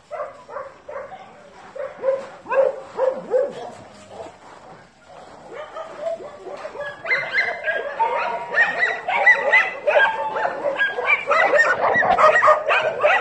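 Several dogs barking, yipping and whining in short, overlapping calls, sparse at first and then building into a louder, denser chorus about seven seconds in.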